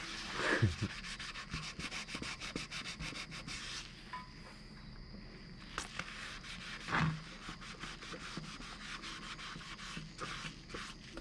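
Scouring sponge scrubbing a soapy plastic motorcycle coolant reservoir, a rapid rasping rub of quick back-and-forth strokes. It eases off about four seconds in, then carries on more faintly, with a low bump of the tank being handled near seven seconds.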